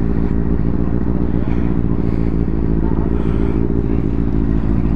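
Motorcycle engine idling steadily close by.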